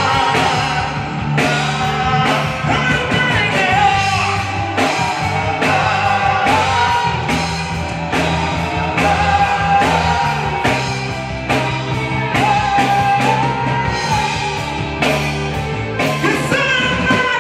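Rock band playing live: a singer holds long notes over drums, bass and electric guitar.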